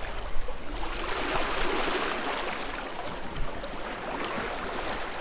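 Water rushing and splashing steadily along the hull of a sailboat under way at sea, with small scattered splashes.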